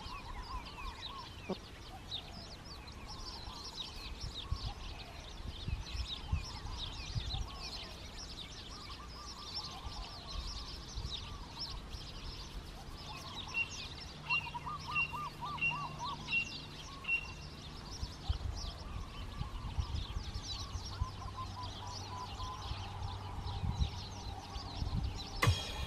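Hens clucking softly as they forage, over many wild birds chirping and singing; midway one bird repeats a short high note about six times. Occasional low thumps.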